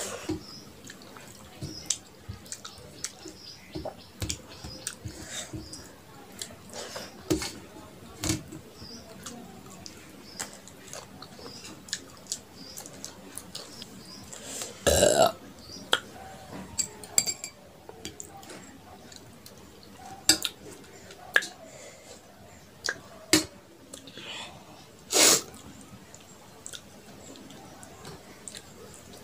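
Close-up eating sounds: mouth clicks, chewing and smacks, and fingers picking food off a metal plate, with a loud burp about halfway through.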